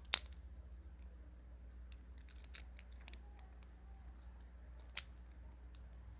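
Plastic clicks and snaps of a Transformers Thundercracker figure being converted by hand into jet mode: a sharp click just after the start, a cluster of smaller clicks two to three seconds in, and one more about five seconds in.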